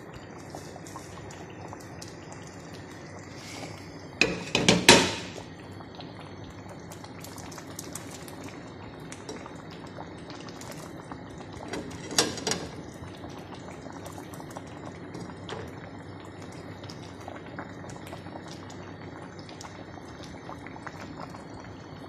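Pan of lomi noodle soup boiling, bubbling steadily. A cooking utensil clatters in the pan twice, loudest about four seconds in and again about twelve seconds in.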